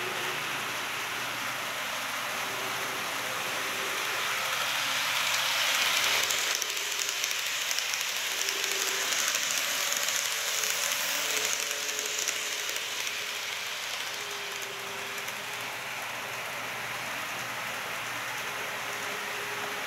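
N-scale KATO KiHa 181 series model train running on the track: a steady hissing rattle of wheels and motor that grows louder as the train comes by close, about halfway through, then fades as it runs away round the far curve.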